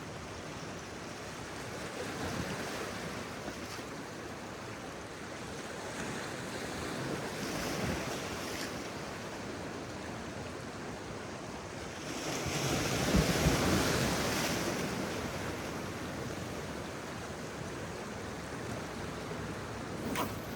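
Waves washing onto the shore in slow surges, loudest about twelve to fifteen seconds in.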